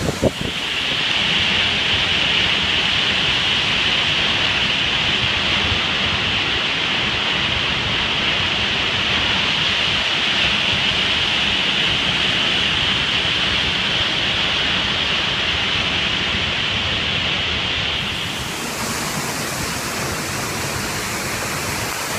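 Steady rushing of a large waterfall heard up close. A bright hiss in it drops away about eighteen seconds in, leaving a slightly quieter, lower rush.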